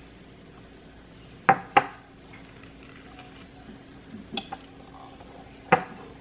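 Metal table knife clinking against a glass jar while scooping out nut spread. There are two sharp clinks about a second and a half in, softer taps around four seconds, and another sharp clink near the end.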